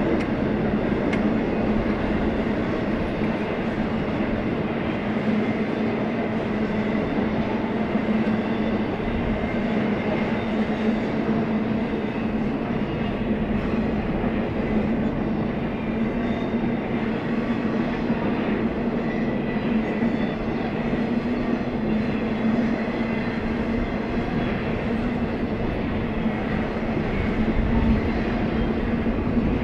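Freight train cars rolling past steadily: a continuous rumble of steel wheels on rail with a steady hum.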